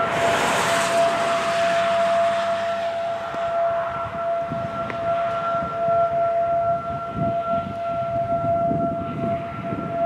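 Federal Signal 2001-SRN electromechanical siren sounding its steady single-tone alert at about 680 Hz, its horn slowly rotating.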